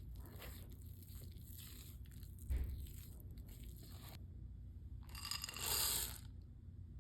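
Kitchen handling sounds while baking: light scraping and crunching strokes, a soft thud about two and a half seconds in, then a louder papery rustle lasting about a second, near the end.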